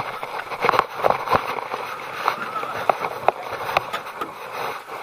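Irregular knocks, taps and rubbing as a small boat is gripped and lifted by hand, with handling noise close to the microphone.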